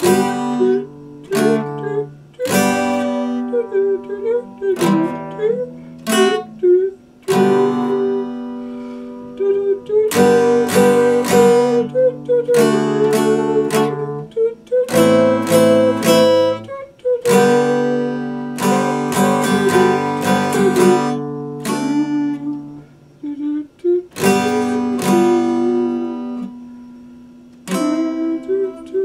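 Epiphone steel-string acoustic guitar being strummed through a song, with chords ringing out and brief gaps between phrases.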